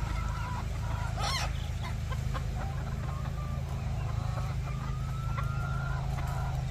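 Bantam chickens clucking and calling, with one louder, wavering call about a second in and a drawn-out call near the end, over a steady low hum.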